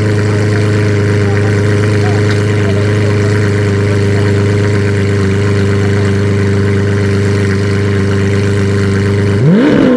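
Lamborghini Veneno's V12 idling steadily, then blipped once near the end, the pitch shooting up and falling back.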